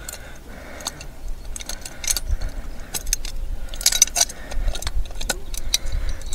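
Irregular metallic clinks and jangles of fixings and a metal wall bracket being handled and fitted, loudest in a cluster about four seconds in, over a low rumble.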